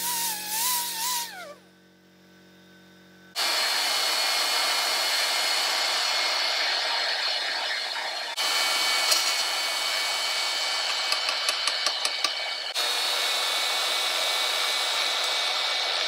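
An air angle grinder with a surface conditioning disc whines on a steel rod, its pitch wavering, and stops about a second and a half in. After a short lull a Bauer portable band saw runs with a steady high whine while it cuts short pieces off hollow steel rod, with a few light clicks partway through.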